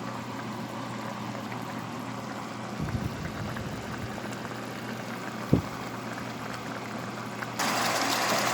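Chicken simmering in oyster sauce gravy in a pot, bubbling over a steady low hum. There are two soft low knocks midway, and the bubbling turns suddenly louder near the end.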